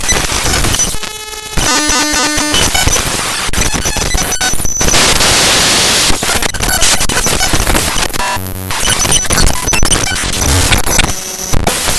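Raw binary data of HandBrake's hb.dll library file played back as audio: loud, harsh static. About a second in, again past the middle, and just before the end, it turns into short buzzing tones held at a steady pitch.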